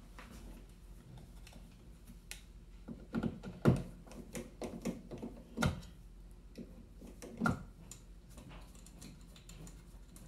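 Screwdriver and hands working the metal mounting strap and screws of an old rotary dimmer switch: scattered small metallic clicks and scrapes, with three louder taps spaced about two seconds apart.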